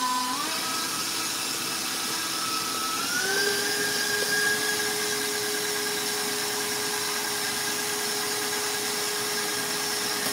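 Electric stand mixer running its wire whisk through chocolate buttercream frosting. The motor whine steps up in pitch twice as the speed is raised, about half a second in and again about three seconds in, then holds steady at high speed.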